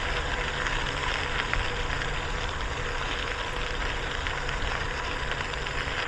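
Bicycle tyres rolling over a fine gravel trail: a steady crunching hiss with faint scattered ticks of grit. Wind rumbles on the microphone at riding speed.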